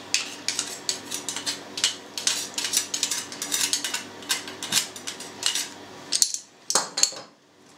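Knife blade scraping and tapping against a metal garlic press, clearing crushed garlic into a plastic jug. It makes a rapid run of small metallic clicks and scrapes that thins out near the end.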